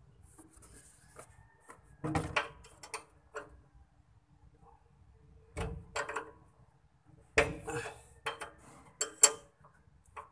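A steel combination wrench clinks and knocks against the metal brake fittings under a truck as it is fitted onto a brake bleeder screw and worked. About ten sharp, irregular metallic clanks come with quiet gaps between, and the loudest fall near the end.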